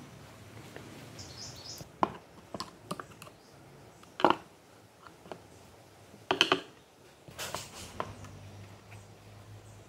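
Metal screwdriver knocking and scraping inside a Honda Dio scooter's plastic air filter box, digging out the crumbled old foam filter. There are sharp knocks about two, four and six seconds in, the loudest a cluster just after six seconds, then a stretch of scraping.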